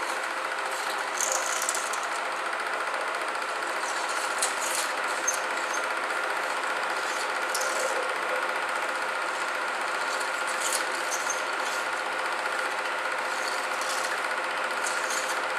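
Steady mechanical running noise with a constant hum and hiss, and scattered faint crackles.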